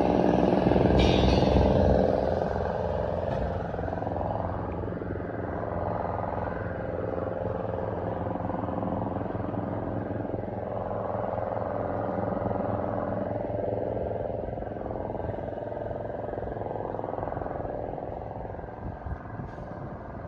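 A motor vehicle engine running close by, loudest in the first two seconds, then a steadier engine sound that fades near the end.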